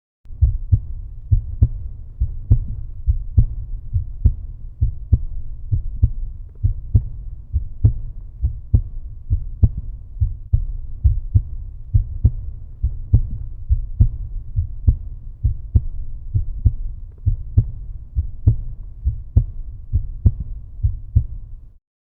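Heartbeat sound: a steady, evenly paced low lub-dub thumping, a little more than one beat a second, that cuts off suddenly shortly before the end.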